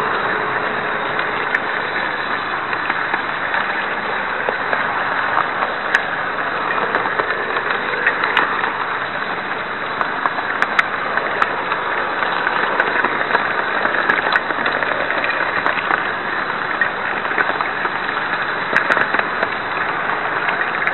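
Model train running on the layout's track, heard from a camera riding on board: a steady whirring rumble with scattered sharp clicks.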